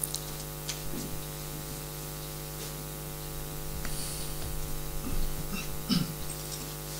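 Steady electrical mains hum on the microphone line, with a few faint clicks and a short soft bump near the end from a book being handled near the microphone.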